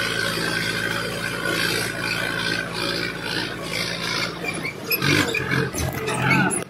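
Mahindra Arjun 555 DI tractor's diesel engine running steadily under load as the tractor pushes through tall standing crop. About three-quarters of the way in, the steady engine note breaks up into louder, uneven sound.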